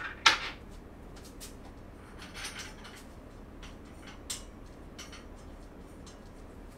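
Sharp clicks and light metallic clatter of steel dresser-frame parts and bolts being handled during assembly: one loud clack just after the start, a short rattle of small knocks about two and a half seconds in, and single clicks around four and five seconds.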